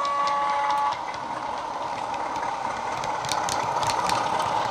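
Digital sound of a Class 33 diesel from a DCC sound decoder, played through the small speaker of a running Heljan OO gauge model: a steady horn note cuts off about a second in, then the diesel engine sound runs on, growing louder as the locomotive approaches. A few sharp clicks come near the end as it passes.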